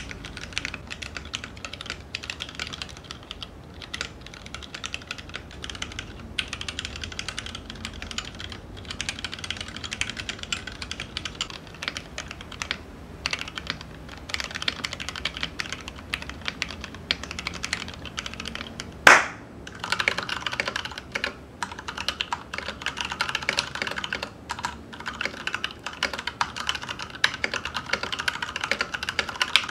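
Fast continuous typing on a mechanical keyboard fitted with blank Keycraft keycaps, a dense run of key clacks, with one much louder knock a little past the middle.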